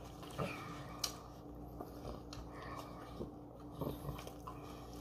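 Foil-lined burger wrapper crinkling and rustling in short bursts as a burger is unwrapped and lifted out by hand.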